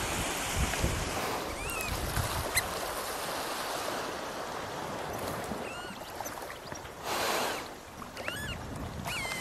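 Small waves washing on a sandy beach with some wind, and a few short bird chirps scattered through; a brief rush of noise about seven seconds in.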